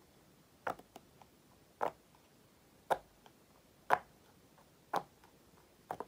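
Silicone pop-it fidget toy bubbles being pressed, six sharp pops about a second apart, with a few faint clicks between them.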